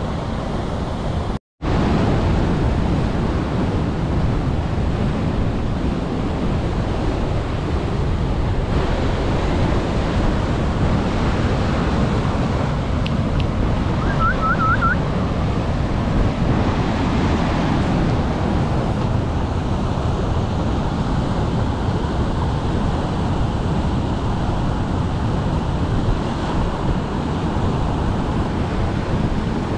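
Water rushing over a low weir and rocks below a dam spillway: a loud, steady rush. The sound cuts out for an instant about a second and a half in.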